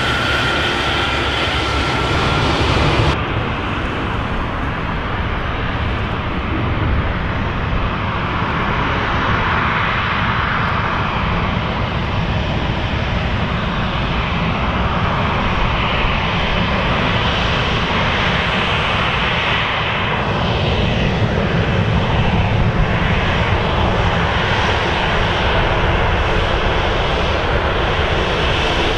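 Jet airliner engines running loud and steady. There is an abrupt change in the sound about three seconds in, and slow sweeping shifts in tone later on.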